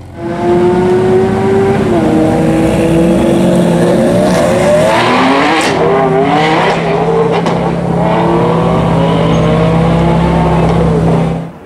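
Ferrari 599 GTB Fiorano's 6.0-litre V12 running hard under acceleration. Its note climbs in pitch several times through the middle, then holds a steady lower drone until it cuts off suddenly near the end.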